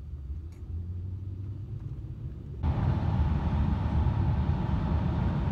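Low rumble of a moving car heard from inside the cabin: road and engine noise. About two and a half seconds in it steps up suddenly louder, with a faint steady hum above it.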